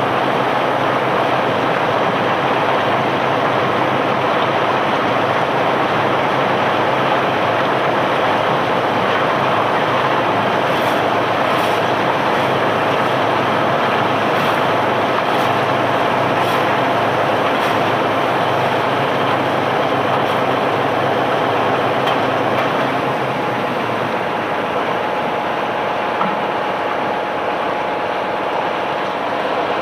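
Barge-unloading machinery's engine running steadily, dropping a little in level about two-thirds of the way through.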